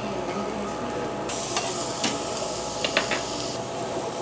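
Pork belly sizzling on a tabletop grill plate, with a louder burst of high hissing for about two seconds in the middle. A few sharp clicks, like utensils knocking, during the hissing.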